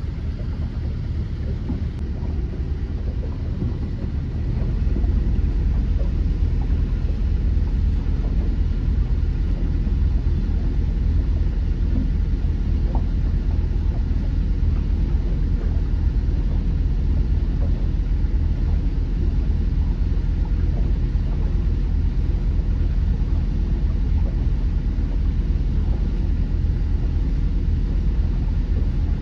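Boat engine running steadily as the boat cruises along, a low rumble that gets louder about four and a half seconds in.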